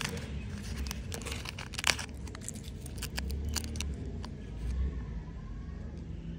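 A candy wrapper crinkling and crackling as it is peeled open by hand, with one sharp snap about two seconds in, over a steady low rumble.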